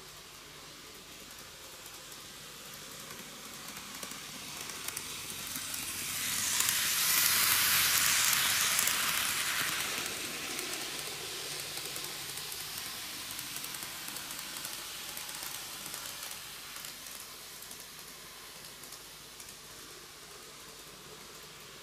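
Microace N-gauge model of the Meitetsu KiHa 8000 series train running past on TOMIX track: a hissing sound of wheels and motor that swells to its loudest about seven to nine seconds in, then slowly fades as the train moves away.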